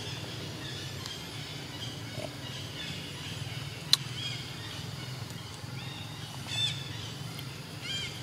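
Outdoor ambience with a steady low hum, a few short high-pitched chirping calls from small animals, and one sharp click a little before four seconds in.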